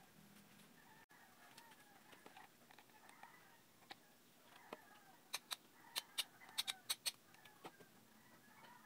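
A quick run of sharp plastic clicks, about eight in two seconds midway through, from the electric fan's speed-selector switch and knob being handled and fitted. Chickens cluck faintly in the background.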